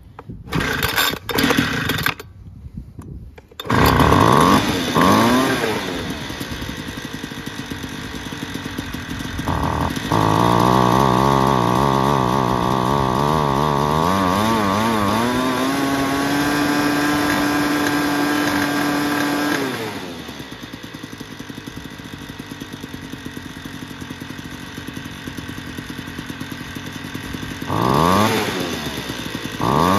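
Homelite Vac Attack II leaf blower's small two-stroke engine pull-started, catching after a few pulls about four seconds in. It then idles and is revved with the throttle several times, holding a higher speed for a few seconds before dropping back to idle, on freshly replaced fuel lines and purge bulb.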